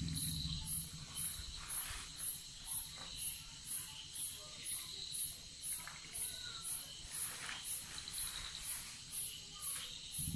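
Night insects chirping in an even rhythm, a high-pitched pulse about twice a second over a fainter steady trill, with a few faint clicks now and then.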